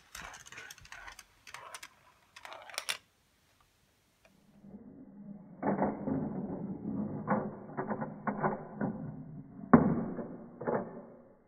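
Steel marbles clicking and rattling through a GraviTrax plastic marble run, then, after a brief pause, marbles rolling along the tracks and metal rails with a low rumble, broken by sharp clacks as they drop onto and strike the track pieces; the loudest clack comes near the end.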